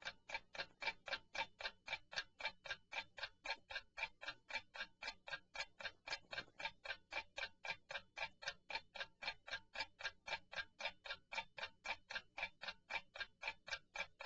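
Clock-ticking sound effect of a countdown timer marking the thinking time for a quiz question: steady, even ticks, about three and a half a second.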